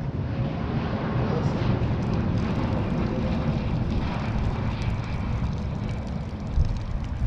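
Wood-Mizer LT15 portable sawmill running: a steady engine drone.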